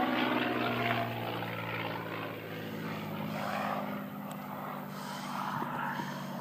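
Display aircraft's engine passing and moving away: the engine note drops in pitch in the first second, then fades gradually.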